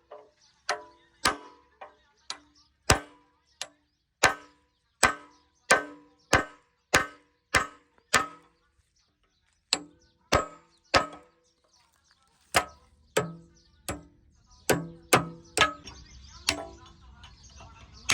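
Heavy hammer blows ringing on steel, about one and a half a second at an uneven pace, with two short pauses. A low machine hum comes in about two thirds of the way through.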